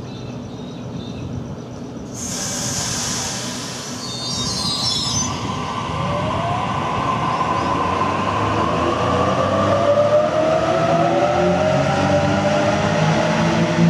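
Waratah double-deck electric train pulling away from a platform: a short burst of air hiss about two seconds in, then the traction motors' whine rising steadily in pitch as it picks up speed, with the rail noise growing louder.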